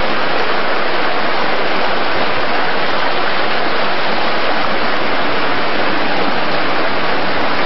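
Shallow stream water rushing steadily over rocks, a loud, even rush.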